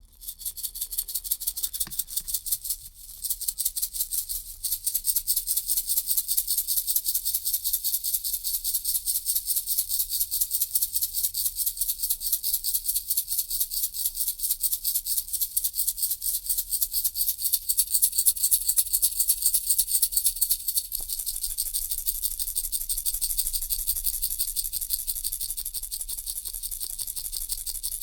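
Baby rattle shaken in a fast, even rhythm, giving a bright, high rattling.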